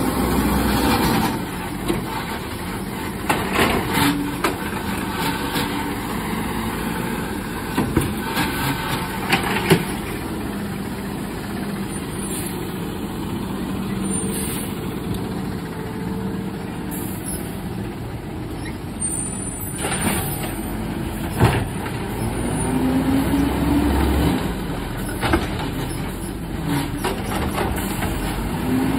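Garbage truck engine running and revving up to drive the hydraulic packer compacting trash, rising about a second in and again later, with several sharp bangs and clanks from the load.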